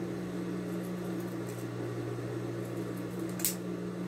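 Scissors snipping through the sewn seam allowance of cotton fabric, soft cuts with one sharper snip about three and a half seconds in, over a steady low electrical hum.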